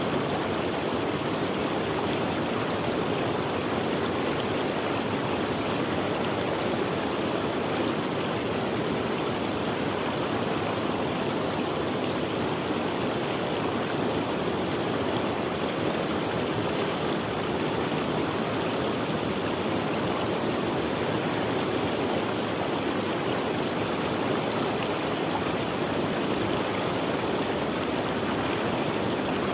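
Running water of a stream, a steady, even rush with no pauses or changes.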